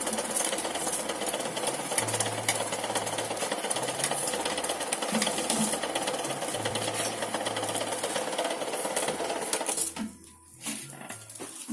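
Mini electric onion slicer machine running steadily, then cutting off about ten seconds in.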